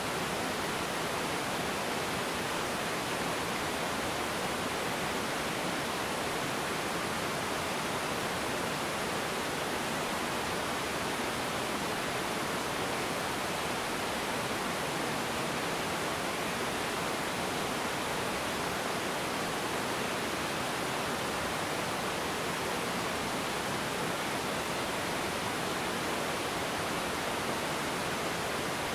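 River water pouring over a low rocky waterfall and rushing through the rapids below: a steady, unbroken rush of water.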